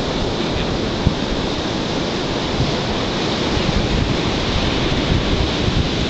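Big storm-driven ocean surf breaking continuously, a steady wash of noise, with wind buffeting the microphone in a rumbling low flutter.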